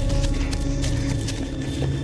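Ominous horror film score: sustained low drones with scattered sharp clicks.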